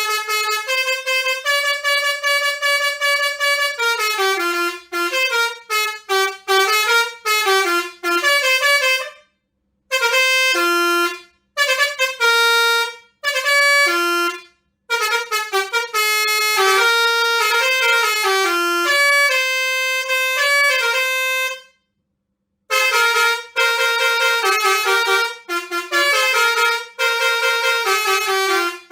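Basuri six-trumpet melody horn playing tunes as a rapid series of horn notes stepping up and down in pitch, with a few short pauses between phrases.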